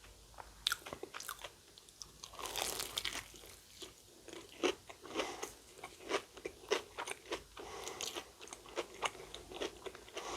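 Close-up chewing and biting of a Korean corn dog, its fried batter coating crunching in many short, irregular crackles with mouth clicks.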